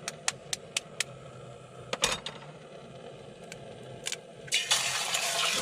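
A few sharp clicks and taps, then, about four and a half seconds in, a sudden loud sizzle as egg goes into a hot frying pan.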